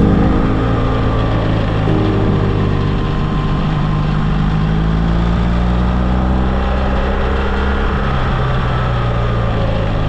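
Motorcycle engine running under way on the open road, its note holding steady and then shifting pitch a few times as the revs change, over a steady rush of wind and road noise.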